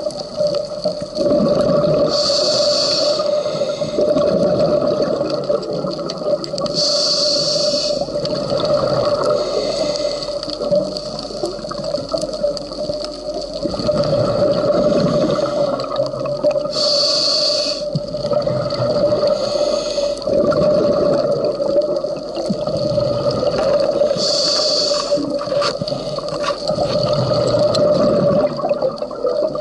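Scuba diver breathing through a regulator underwater: a short hiss of inhalation four times, each followed by a longer burbling rush of exhaled bubbles, over a steady hum.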